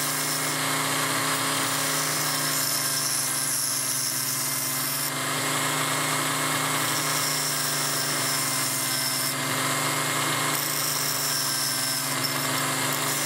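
High-speed rotary tool running steadily with an abrasive wheel held against the threaded brass shaft of a speaker binding post, grinding its end down so a ferrule will fit over it. The grinding hiss changes a little about five seconds in and again near ten seconds.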